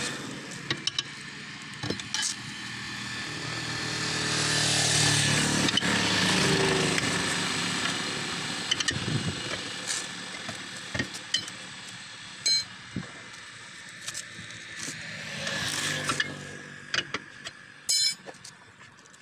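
Scattered metal clinks and knocks of a steel tyre lever working a tractor tyre's bead on its steel rim. A passing vehicle rises and fades twice, loudest about five seconds in.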